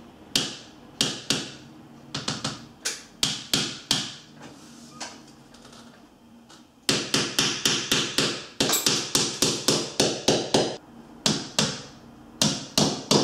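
Claw hammer tapping steel nails through an MDF picture rail into a solid stone wall: a few spaced taps at first, then from about seven seconds in a quick run of roughly three to four blows a second, broken by short pauses.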